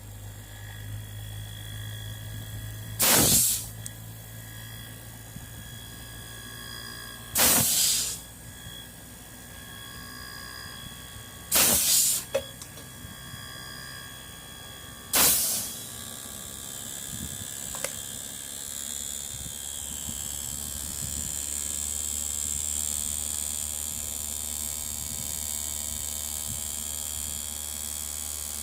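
Four short, loud hissing blasts about four seconds apart, then a steady high hiss that runs on.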